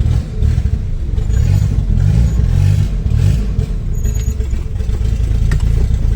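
Turbocharged VW AP 1.9 engine of a 1995 Voyage, built with a 350T cam and a Holset HX40 turbo, running with a steady, loud, lumpy low rumble.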